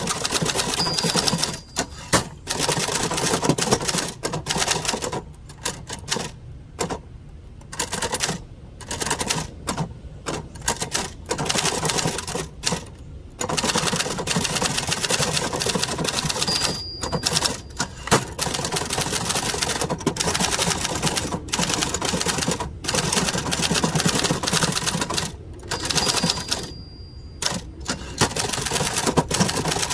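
Typing on a 1970s Adler Gabriele 25 manual typewriter: rapid runs of key strikes clacking, broken by several short pauses.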